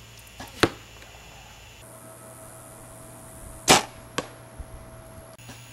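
Two arrow shots from a bow at a foam 3D deer target, about three seconds apart, each a single sharp smack. The second is followed by a fainter click about half a second later.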